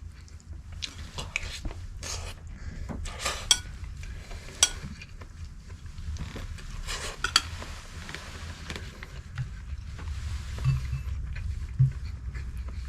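Cutlery clicking and scraping on a plate at irregular moments during a meal.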